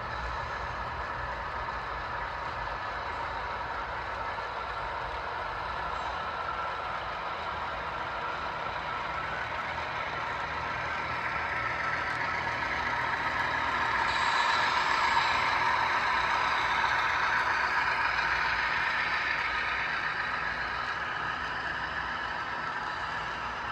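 HO scale model coal train running past, with the diesel engine sound of its Dash 8 locomotives and the steady rumble of the cars on the track. The sound swells as the locomotives pass, about fourteen seconds in, then eases as the coal hoppers follow.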